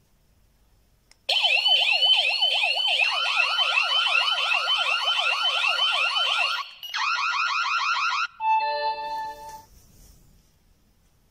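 YISEELE wireless home alarm siren sounding. It plays rapidly repeating rising sweeps for about five seconds, switches to a faster sweep pattern for over a second, then gives a short steady chime tone and stops.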